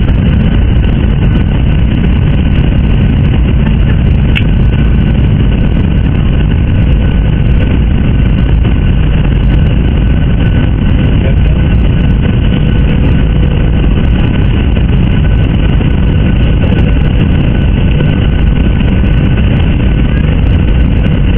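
Steady engine and airflow noise inside a jet airliner's passenger cabin: a loud, even rumble with a faint steady hum over it.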